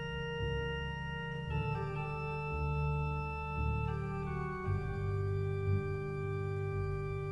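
Slow, sombre classical music on organ: sustained chords that change every second or two over a deep held bass.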